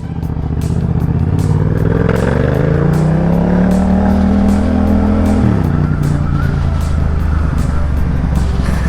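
Yamaha XSR700's parallel-twin engine under way, its pitch rising as the bike accelerates, then dropping sharply about five and a half seconds in with a gear change and holding steady after.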